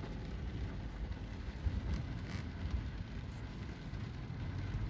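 Steady rain with a low rumble of road traffic under it, and one brief sharp sound a little over two seconds in.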